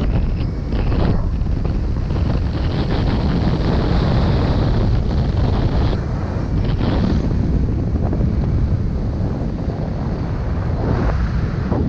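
Freefall wind rushing over the camera's microphone during a skydive: a loud, steady rush that surges and eases a little from moment to moment.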